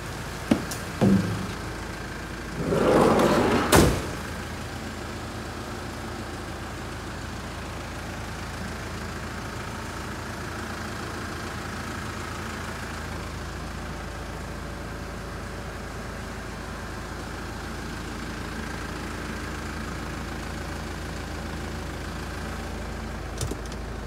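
Kia Bongo minibus's turbo-diesel engine idling steadily. In the first few seconds there are two short knocks, then a loud rushing scrape that ends in a sharp bang about four seconds in.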